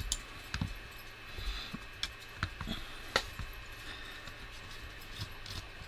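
Scattered small clicks and taps of screws and a driver being handled as the top plate of an FPV quadcopter is unscrewed, the sharpest click about three seconds in.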